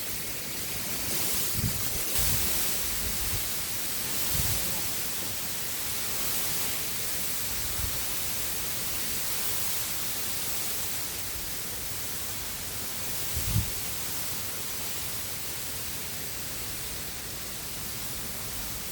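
Steady rushing hiss of river water, with gusts of wind buffeting the microphone as low thumps a few times, the loudest about two-thirds of the way through.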